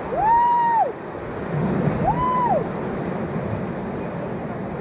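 Whitewater rapids rushing steadily, with two high-pitched whoops from rafters, one in the first second and another about two seconds in.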